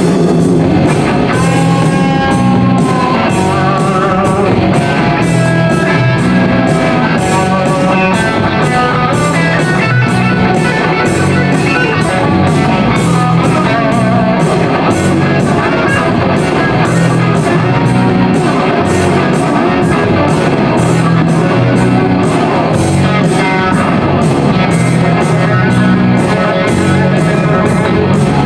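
Background rock music: electric guitar over a steady drum beat.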